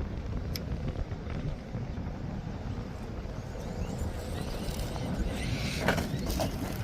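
ARRMA Vorteks RC truck driving over dirt, its electric motor whining faintly under a steady rumble of wind on the microphone. The motor gets louder from about four seconds in, with a few sharp knocks or clatters near the end.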